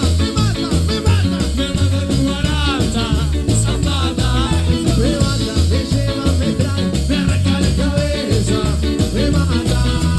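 Live cuarteto band playing: male voices singing over electric bass, keyboard, guitars and horns, driven by a steady bouncing beat.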